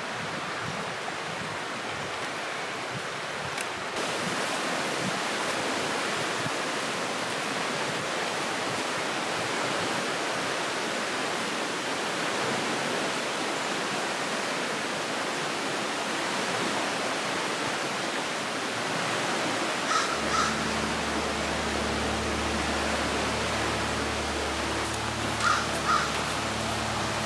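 Steady rushing noise of river rapids. A crow caws twice about two-thirds of the way through and twice again near the end.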